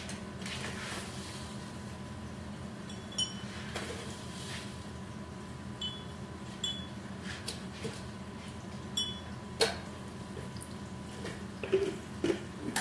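Kitchen utensils and dishes clinking and knocking now and then, several sharp clicks with a brief ringing, the loudest near the end, over a steady low hum.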